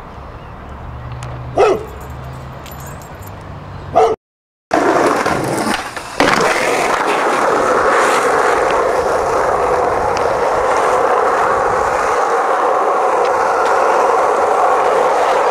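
Skateboard wheels rolling fast over asphalt, a loud steady rolling noise that starts after a short cut about four seconds in. Before it, two short sharp sounds come about two seconds apart over a low hum.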